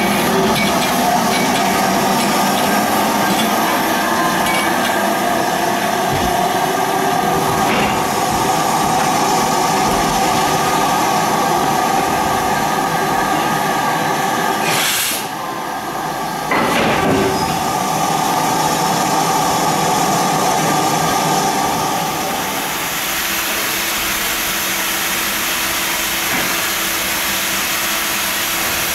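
LMS Stanier Class 8F steam locomotive standing with steam up, giving off a steady loud hiss with faint steady tones in it. The sound drops away briefly about halfway through, then returns.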